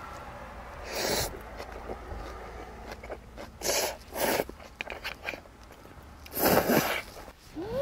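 A person slurping noodle soup in short bursts: once about a second in, twice around four seconds, and a longer slurp near the end, followed by a short hummed 'mm'.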